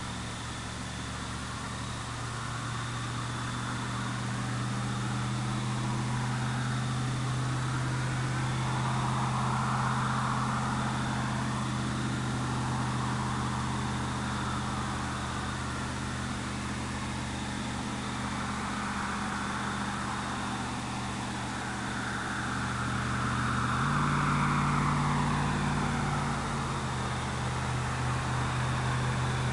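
2000 Chevrolet Silverado's 4.8-litre V8 idling steadily through a muffler with its fiberglass packing removed; the idle note steps up for a few seconds near the end. Twice a higher rushing sound swells and fades over the idle.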